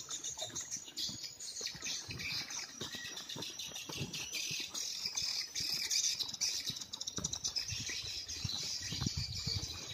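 High-pitched chirping of birds and insects, a dense flickering chorus throughout, with irregular low knocks of handling noise underneath.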